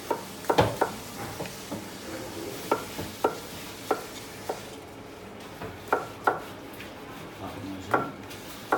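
Kitchen knife cutting peeled potatoes on a wooden cutting board: about a dozen sharp knocks of the blade meeting the board, at uneven intervals with short pauses between cuts.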